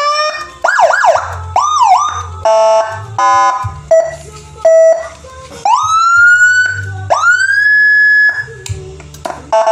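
Whelen Gamma-style electronic siren module through a horn speaker, cycling through its tones: rising whoops, a fast up-and-down yelp, a buzzing horn blast, two short steady beeps, then two long rising wails that climb and hold at the top, with quick sweeps starting again near the end. Loud.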